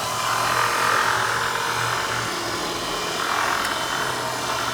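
Electric winch motor running steadily, whirring as it pulls the car up onto the trailer.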